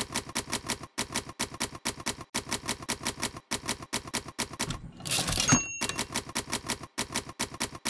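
Manual typewriter typing, a fast run of sharp key strikes several a second; about five seconds in a carriage-return swipe and the margin bell ding, then the key strikes go on.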